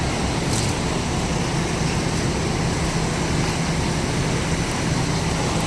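Steady city street traffic noise with an even, low engine hum.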